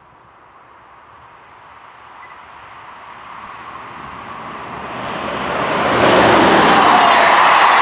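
An electric passenger train with double-deck coaches approaching on the track, its rolling noise swelling steadily from faint to loud. It levels off loud about six seconds in as the train reaches the microphone.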